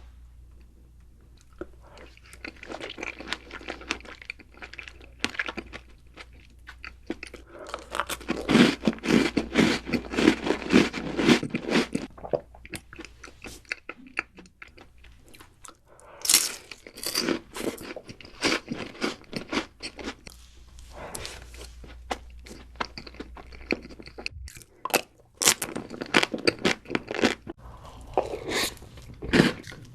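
Close-miked crunchy biting and chewing of food, in dense bursts of crisp crunches separated by short lulls.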